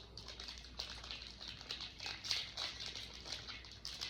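Trading cards being handled and slid against one another: a run of short, irregular papery rustles.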